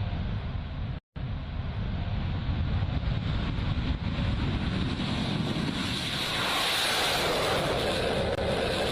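Sukhoi Su-30MKI fighter jet running: a steady, noisy low rumble that cuts out for a moment about a second in. From about six seconds it becomes a louder, higher rushing noise.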